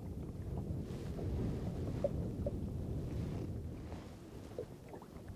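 Wind buffeting the microphone on open water, with small waves lapping against a small boat and a few faint light ticks.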